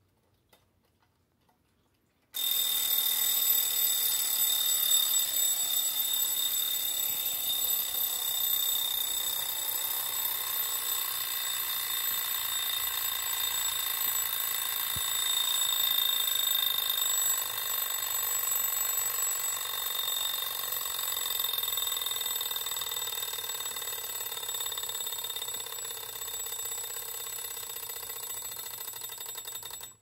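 A clock's alarm going off: a steady, high-pitched buzzing ring starts about two seconds in, holds for nearly half a minute and cuts off suddenly near the end.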